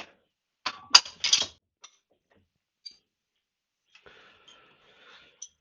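Spanner and steel fork top nut working in a vise: a quick cluster of sharp metallic clicks about a second in, then a faint scraping rattle near the end.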